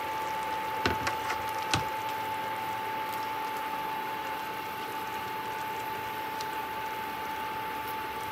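Vegetables and soy curls simmering in a frying pan on an induction cooktop, with a spatula scraping and tapping in the pan: four sharp taps about a second in, then a steady bubbling hiss. A steady tone runs underneath throughout.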